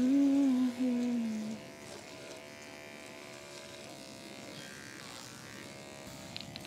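Electric horse clippers buzzing steadily as they trim a horse's leg hair. A louder hum that rises a little in pitch and falls back fills the first second and a half.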